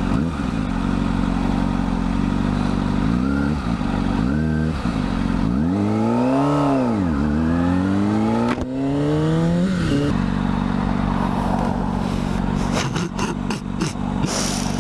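Sport motorcycle's inline-four engine heard on the bike. It runs steadily, swells up and back down about five and a half seconds in, then climbs steadily in pitch for about three seconds under acceleration before settling to a steady cruise, with some wind buffeting near the end.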